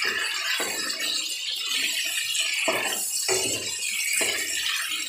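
Chicken pieces sizzling steadily in hot oil in a nonstick karahi, frying until they change colour, with a wooden spatula scraping and knocking against the pan a few times as they are stirred.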